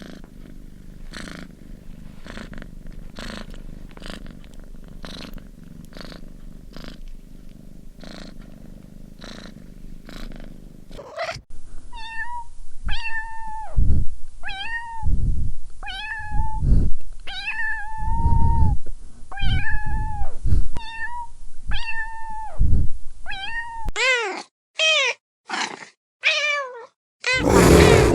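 A cat purring steadily, with a soft pulse about once a second. Then, after a cut, kittens meow repeatedly, about one clear call a second. Near the end come quicker, short mews that fall in pitch, with silent gaps between them.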